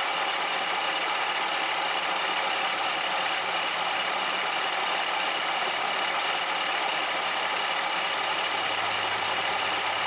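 Bridgeport milling machine running steadily, its cutter milling welded-up jaws of a Lovejoy jaw coupling back to shape, with an even, continuous machining noise.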